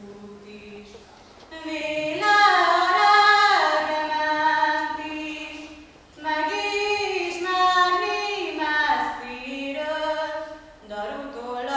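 A girl singing a folk song solo and unaccompanied, in slow phrases of long held notes that glide between pitches, breaking for breath about six seconds in and again near the end.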